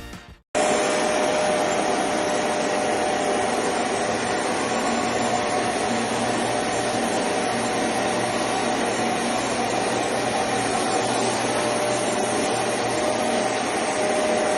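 Bissell ProHeat 2X Revolution carpet cleaner running: a steady suction-motor noise with a faint steady tone through it. It starts about half a second in and cuts off suddenly at the end.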